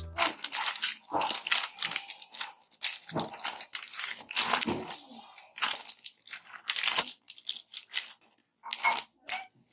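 Irregular crinkling and rustling of food packaging, with light knocks, as pantry items are handled and put away.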